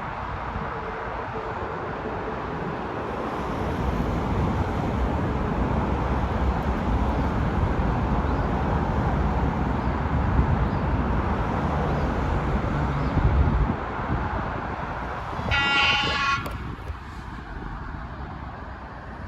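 ChS6 electric locomotive and its train passing, a steady rumbling rush of wheels on rail that drops off suddenly about two-thirds of the way through. About two seconds later a short high horn blast sounds for about a second.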